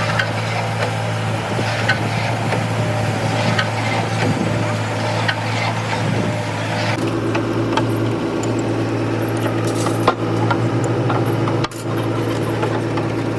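A machine running steadily with a low hum, a second higher, pulsing drone joining about halfway through, and light metal clicks and taps scattered over it.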